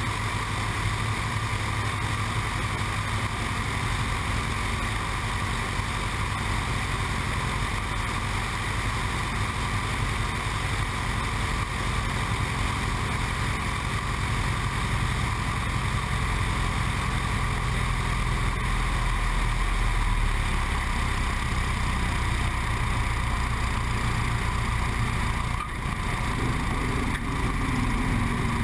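Single-engine high-wing light aircraft's propeller engine running steadily, mixed with wind rushing over a camera mounted outside on the wing strut, through the landing approach, touchdown and runway roll.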